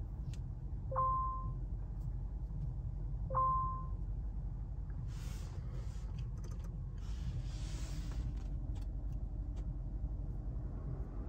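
Two short electronic chimes about two and a half seconds apart, each a clear two-pitch beep, over a steady low rumble. Later come two stretches of hiss with a few scattered clicks.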